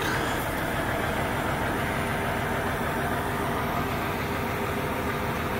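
Heavy diesel engine of a Kenworth W900L sleeper truck idling with a steady rumble.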